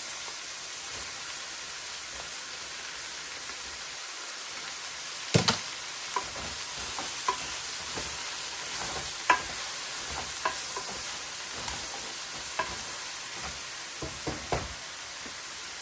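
Shrimp frying and sizzling in a pan with a steady hiss, stirred with a utensil that clacks against the pan now and then, loudest as a double clack about five seconds in.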